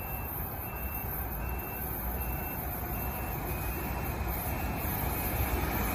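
NJ Transit Arrow electric multiple-unit train approaching on the main line, its low rumble and wheel noise growing steadily louder as it nears. A faint high beep repeats over it.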